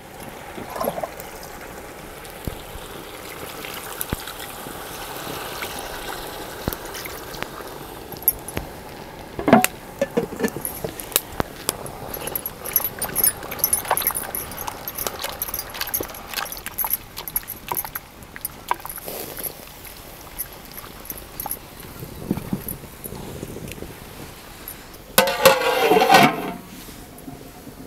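Water poured into a pot of spiced fish pieces, then the curry stirred, with many small clicks and scrapes against the aluminium pot. Near the end a louder, briefly ringing sound as a steel lid is set on the pot.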